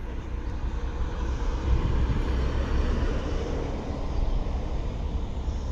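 Low, steady vehicle rumble that swells over the first two or three seconds and then holds.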